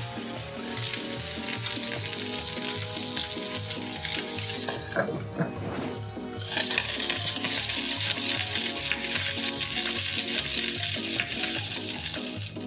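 Broccoli florets sizzling as they fry in a pan and are stirred with a silicone spatula; the sizzle drops away briefly about five seconds in, then comes back. Background music with a steady beat plays underneath.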